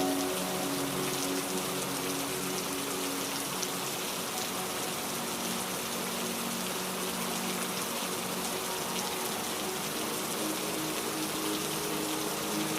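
Steady rain falling, an even hiss with scattered drops. Soft held music notes lie underneath, fading out just after the start and coming back near the end.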